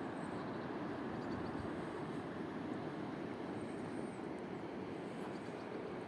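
Blizzard wind blowing: a steady, low rushing noise with no breaks.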